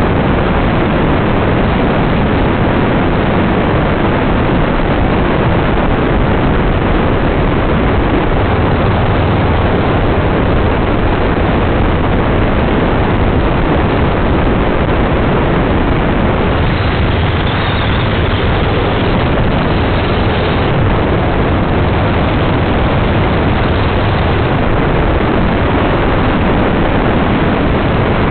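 Open dune buggy driving steadily along the beach: a constant engine drone mixed with heavy wind rush over the microphone.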